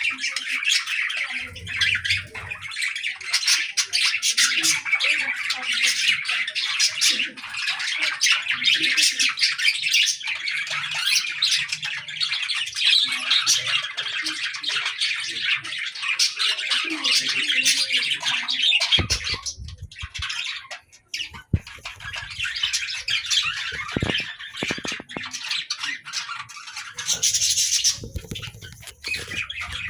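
Many small birds chirping and squawking together in a dense, continuous chatter, with a brief lull about twenty seconds in.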